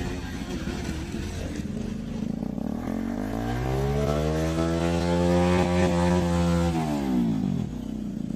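Motorcycle engine running, rising in pitch about three seconds in, holding a higher steady note, then dropping back near the end.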